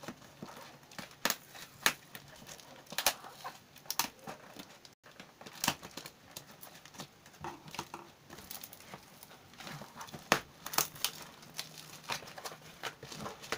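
Taped cardboard shipping box being cut and torn open by hand: irregular crackling, crinkling and tearing snaps as the tape and flaps give way.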